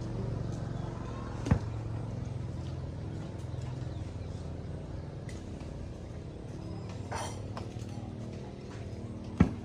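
A steady low mechanical hum, with two sharp knocks: one about a second and a half in, one near the end.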